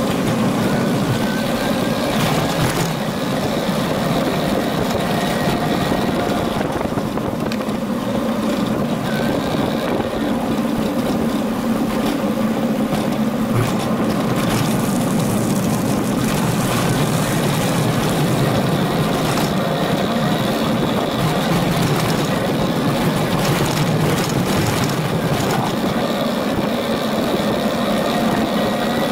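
Steady wind noise on the microphone and rolling rumble from a moving bicycle, with a few short knocks from the bike and its wire front basket.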